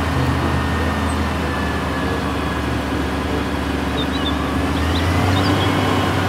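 Mobile crane's diesel engine running steadily, a constant low hum under an even rumble, with a few faint high chirps about two-thirds of the way through.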